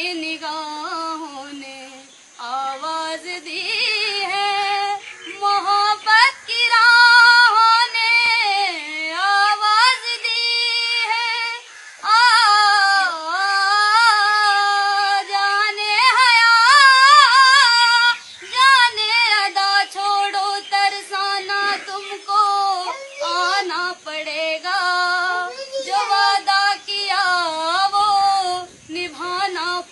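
A woman singing a Hindi film song unaccompanied, in long held notes with a wavering vibrato, broken by short pauses between phrases.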